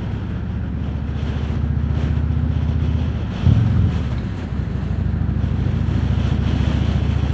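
Harley-Davidson Road King Special's V-twin engine running on the move, with wind rushing over the microphone. About halfway through the engine note briefly gets louder and shifts, then settles after about a second.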